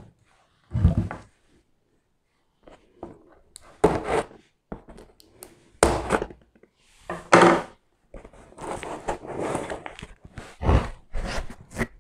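Cardboard pizza box being handled, cut open and its lid lifted: a string of short knocks, thunks and scrapes, with scissors cutting the paper seal stickers, and a longer stretch of cardboard rustling a little past the middle.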